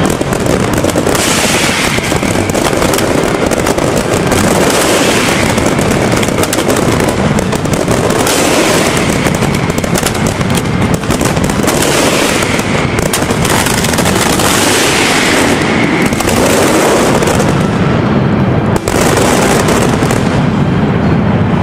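Mascletà: a dense, unbroken barrage of firecracker bangs and crackling, loud and even throughout.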